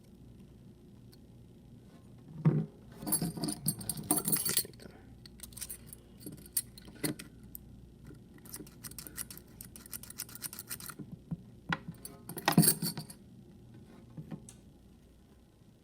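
Small metal parts of a disassembled Yale Superior euro cylinder lock clinking and rattling as they are handled: two bursts of jingling clicks, one a few seconds in and one near the end, with lighter scattered ticking between.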